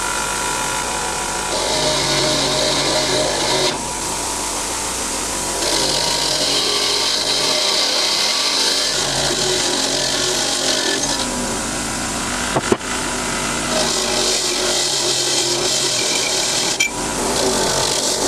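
A power tool running steadily on metal parts, with three long passes of harsher scraping noise as the work is pressed against it, and a couple of sharp clicks between passes.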